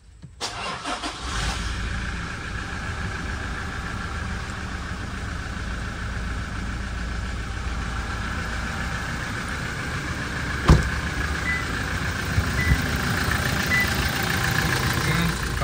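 Toyota Fortuner's diesel engine cold-started with the push button, catching within about a second and settling into a steady idle. A single sharp knock about ten seconds in.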